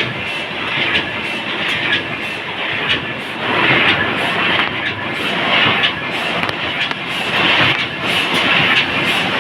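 Dingshung flute laminating machine running while it laminates B-flute corrugated cardboard: a steady mechanical clatter, with a hiss that swells and falls every second or two.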